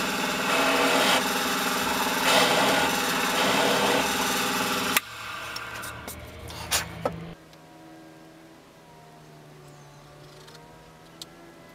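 Workshop power tool's electric motor running steadily, then switched off about five seconds in; it runs on faintly for about two seconds, with a couple of knocks, before stopping.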